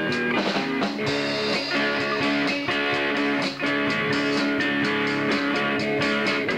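A live rock band playing: two electric guitars ringing out sustained chords and notes over a Mapex drum kit with steady cymbal strokes.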